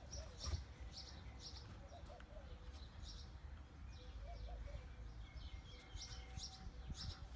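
Small birds chirping: short, high chirps repeating every half second or so, faint over a low rumble.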